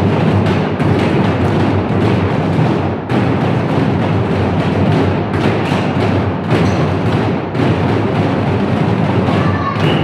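Loud, dense drumming: several players beat barrel drums on stands with sticks in a rapid, unbroken stream of strokes.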